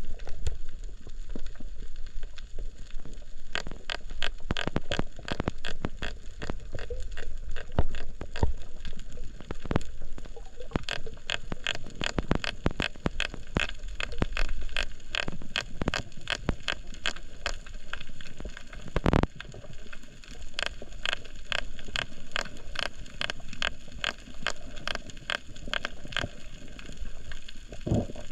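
Underwater crackle of a coral reef: a dense, irregular stream of sharp clicks, typical of snapping shrimp, with one louder knock about two-thirds of the way through.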